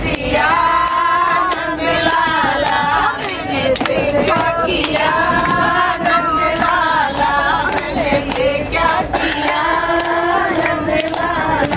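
A group of women singing together in three long, drawn-out phrases with short breaks between them, hands clapping along in time.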